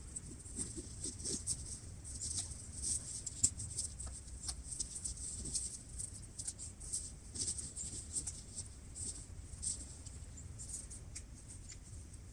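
Irregular rustling and small crackles of camping gear being handled and unpacked, over a faint low rumble.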